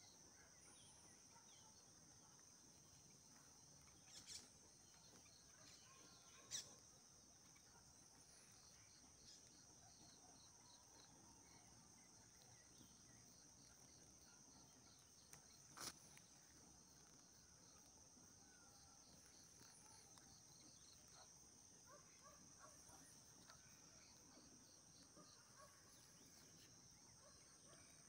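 Faint, steady, high-pitched drone of insects calling, with a few short sharp clicks about four, six and a half and sixteen seconds in.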